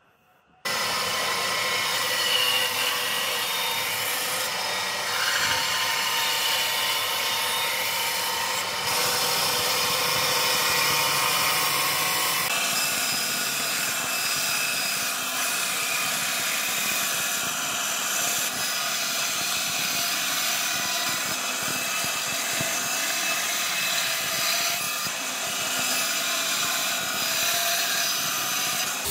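Band saw running and cutting through a thick wooden block, a steady sawing noise that starts suddenly about half a second in and shifts abruptly a couple of times.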